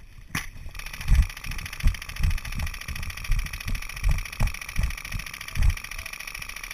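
Dull thumps a couple of times a second, like footsteps jolting a body-worn camera, over a steady hiss with a fast, fine rattle that starts about a second in and cuts off suddenly near the end.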